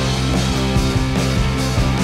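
Background rock music, played at an even level.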